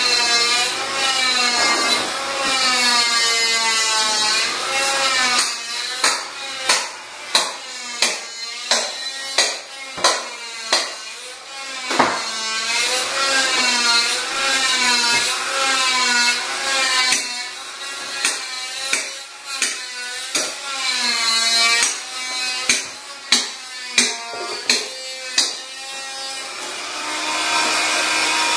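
Trigger spray bottle squirting glass cleaner onto a frameless glass shower panel in quick sharp spurts, in two runs of about one to two a second, over squeaky rubbing on the glass that rises and falls in pitch.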